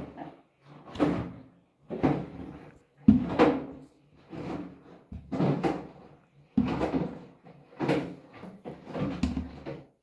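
Hoover front-loading washing machine's drum tumbling a wet bath mat and mop: a sloshing thump of the load and water about once a second.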